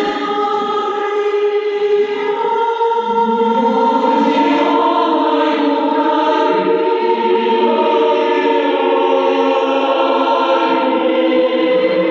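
A choir singing long held chords, the voices moving to a new, fuller chord about two seconds in.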